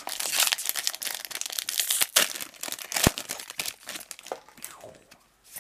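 Magic: The Gathering booster pack being handled: the foil wrapper crinkling and cards shuffling in the hands, with a sharp tap about three seconds in, then dying away.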